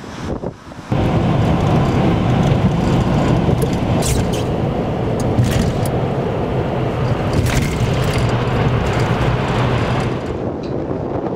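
Wind on the microphone for about a second, then a steady rumble of road and engine noise heard from inside a car driving into and through a highway tunnel, with a few brief sharper sounds along the way.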